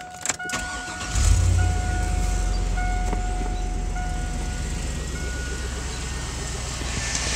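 2002 Chevrolet Avalanche V8 started about a second in, then idling steadily with its cracked catalytic-converter weld patched with steel putty and exhaust bandage tape; it is definitely a lot quieter. The truck's warning chime dings about once a second with the door open and stops partway through.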